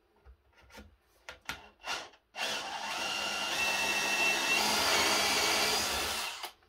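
Cordless drill boring through a wooden board. A few light handling clicks come first; about two seconds in the drill starts, runs steadily with a motor whine for about four seconds, then stops.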